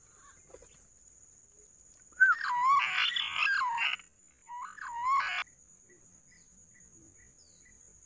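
Green pigeons (punai) calling: two wavering, warbling whistled calls, the first about two seconds in and lasting about two seconds, the second shorter, about half a second after it. A faint steady high insect whine runs underneath.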